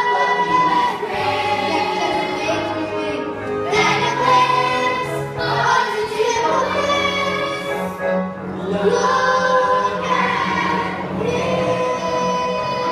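A youth musical-theatre cast singing together in chorus, holding long notes over instrumental accompaniment, the chord changing every two or three seconds.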